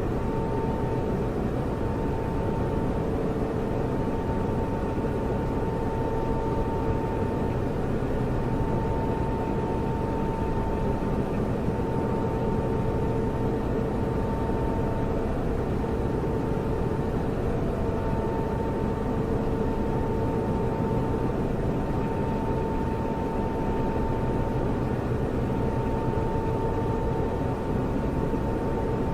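Computer servers running: the steady whir of cooling fans, with a faint high whine that drops out now and then.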